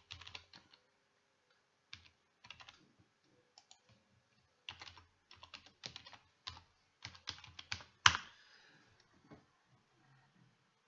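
Typing on a computer keyboard: irregular runs of keystrokes as an email address and password are entered, with one louder click about eight seconds in.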